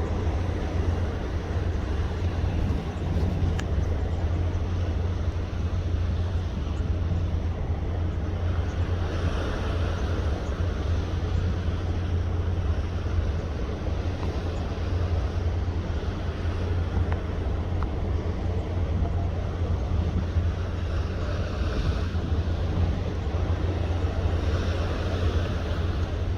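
Strong wind blowing over the microphone on a ship at sea, a steady low rumble with a hiss that swells in gusts a few times.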